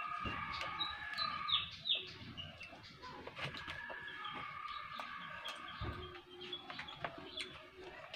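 Chickens and other birds calling in the background, in long drawn calls with a few short rising chirps. Soft clicks of lettuce and food being handled are heard through them.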